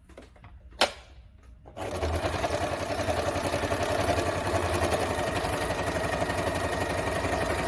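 Singer 2282 Tradition sewing machine starting up a couple of seconds in and running steadily at speed, its needle stitching through thick layers of denim with a rapid, even chatter. A single sharp click comes about a second in, before the motor starts.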